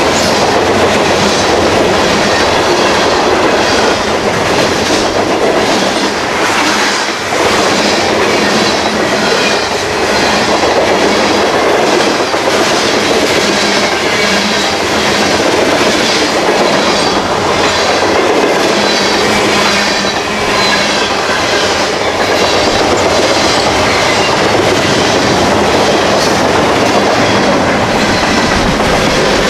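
A freight train's cars rolling past, loud and steady, with the wheels clacking in a regular rhythm over the rail joints.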